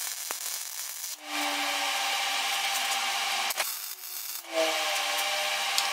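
MIG welder laying beads on steel plate: two runs of steady arc crackle, the first starting about a second in and stopping near the four-second mark, the second starting again about half a second later.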